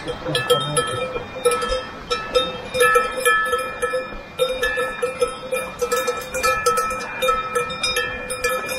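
Several cowbells on grazing cattle clanking irregularly. Each strike rings on briefly, and bells of a few different pitches overlap.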